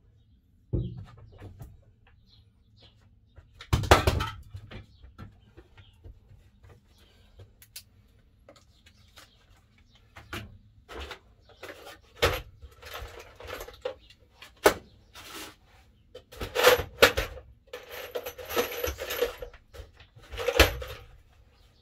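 Small metal pieces clinking and rattling in a plastic tub as they are handled and sorted, with scattered knocks and clicks. A sharp knock comes about four seconds in, and the clatter is densest near the end.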